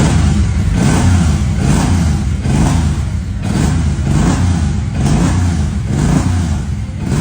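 Suzuki M109R's 1800cc V-twin engine running just after its first start following a full rebuild, revved in quick repeated throttle blips, about one a second.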